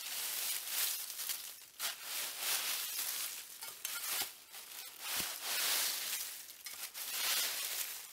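Dry leaf litter rustling and crunching as a folding shovel scrapes and scoops through it, in repeated sweeps about every second or two.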